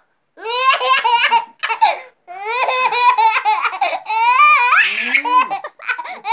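A toddler laughing in repeated high-pitched bursts, breaking into squeals between them.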